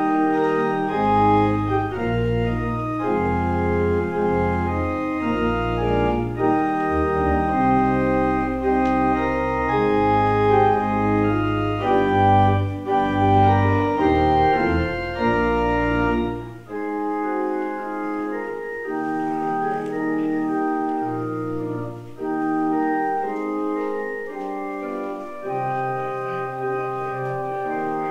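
Organ music: slow, sustained chords over a deep bass. The bass drops out about two-thirds of the way through, leaving quieter, higher chords.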